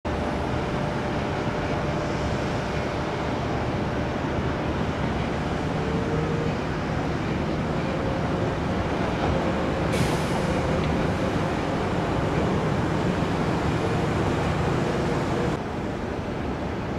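Jet aircraft engines running: a loud, steady rush with faint whining tones, with a single click about ten seconds in and a sudden drop in level shortly before the end.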